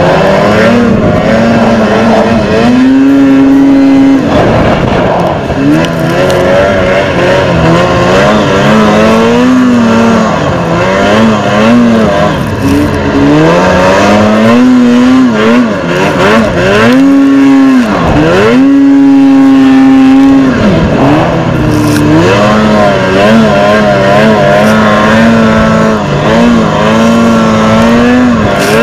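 Arctic Cat XF 8000 snowmobile's C-TEC2 two-stroke twin running hard under load through deep powder, its pitch rising and falling with the throttle. About eighteen seconds in the throttle is chopped briefly, then opened back up.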